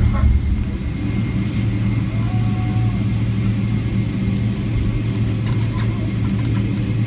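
Boeing 777-300ER cabin noise while the jet rolls on the ground after landing: a steady low rumble from its GE90 engines and the airframe, with a faint steady whine above it. The level eases slightly about a second in, then holds.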